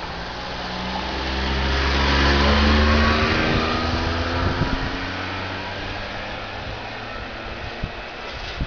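A motor vehicle driving past, its engine note rising as it accelerates, swelling to its loudest about two to three seconds in and then fading away, with a short knock near the end.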